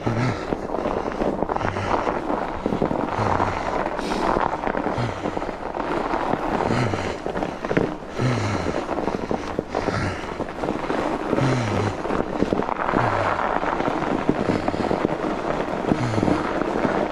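A fat-bike rider breathing hard from the effort of pedalling, with a short falling exhale that carries some voice about every one and a half seconds. Under it, the bike's wide tyres crunch and crackle over packed snow.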